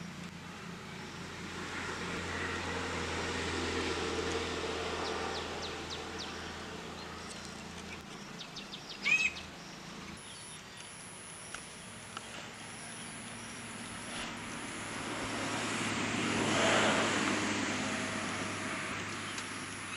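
Outdoor ambience: a noise that swells and fades twice, a brief bird chirp about nine seconds in, and a high, thin whine in short runs through the second half.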